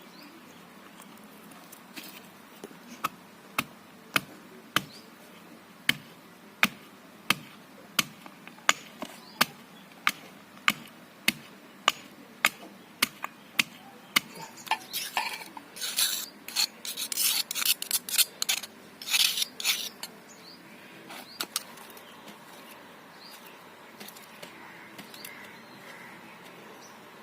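Stone roller of an ammi grinding stone striking the stone in steady knocks, about one every half-second, as spices are pounded. Near the middle the knocks give way to several seconds of rough stone-on-stone rubbing as they are ground.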